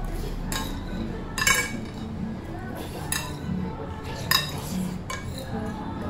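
Metal spoon and fork scraping and clinking against a large ceramic plate as the last of the curry is scraped up, with a sharp clink about every second, the loudest about a second and a half in and again past four seconds.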